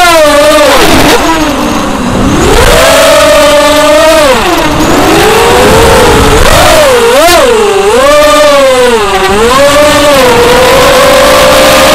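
ZMR250 FPV quadcopter's brushless motors and propellers whining, the pitch swooping up and down again and again with the throttle, heard close from the camera riding on the quad.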